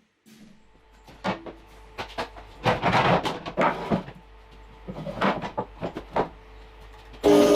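A string of knocks, clicks and scraping handling noises, some short and some lasting about a second. Near the end a loud sustained sound with several steady pitches starts suddenly.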